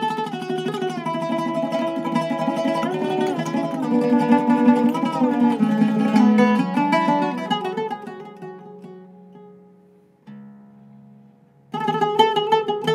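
Zeryab oud with a Canadian cedar soundboard and a maple and wenge back, played solo: a phrase of quickly plucked notes with a fast repeated-note passage in the middle. The phrase dies away about eight seconds in, leaving a soft held note, and a loud new phrase starts near the end.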